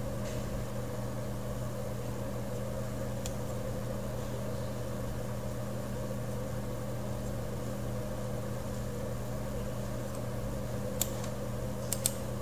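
Steady low mechanical hum, with a computer mouse clicking sharply once a few seconds in and several times near the end.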